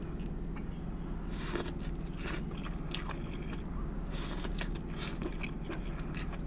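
Close-miked eating sounds: a person chewing pesto shirataki noodles and ribeye steak, with scattered small clicks and several louder bites.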